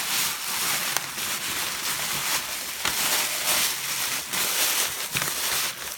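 Paper rustling and crinkling as a paper shopping bag is handled: an uneven hiss that swells and fades, with a couple of small clicks.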